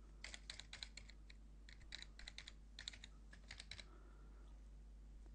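Computer keyboard keystrokes as a password is typed: a run of quick key clicks in short bursts, stopping about four seconds in.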